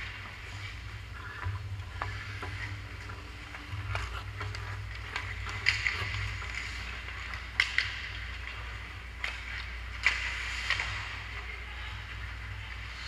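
Ice hockey play: skate blades scraping and carving on the ice, with several sharp clacks of sticks striking the puck, over a steady low hum.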